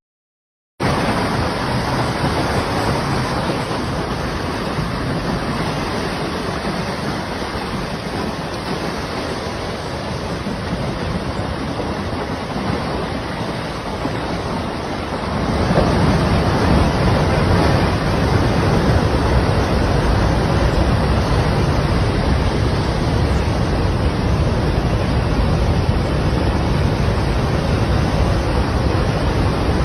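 Mudslide rushing past as a loud, continuous wash of noise that gets louder and deeper about halfway through.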